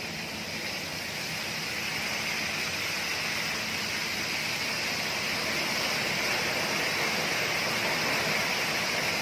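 Flushing water rushing steadily out of a water-cooled chiller's evaporator outlet. It swells slightly over the first couple of seconds, then holds an even rush.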